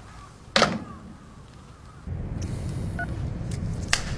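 A crow caws once, short and harsh. About two seconds in, a steady low outdoor rumble takes over, with a fainter call and a sharp click near the end.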